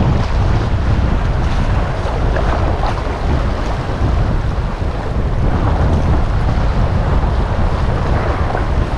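Wind buffeting a GoPro's microphone in a steady low rumble, over waves washing on the shore.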